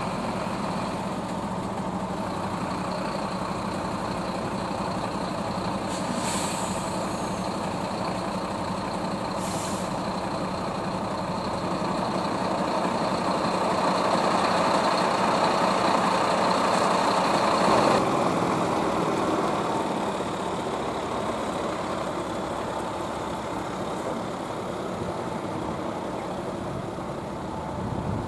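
Heavy diesel trucks and vans of an emergency convoy driving slowly past, engines running with tyre noise, swelling as a vehicle passes close about halfway through. Two short hisses, typical of truck air brakes, come early on.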